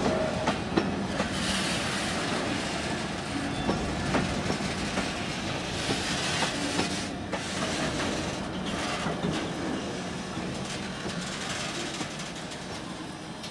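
Oil tank wagons of a freight train rolling slowly past, their wheels clacking over the rail joints with a few short squeals. The sound eases off gradually.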